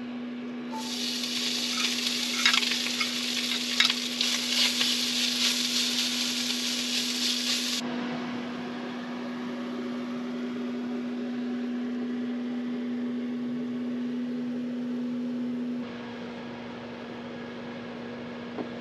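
Shredded pork carnitas sizzle in a hot cast-iron skillet as they are tipped in and stirred, with a few scraping clicks. The sizzle stops abruptly about eight seconds in, leaving a steady low hum.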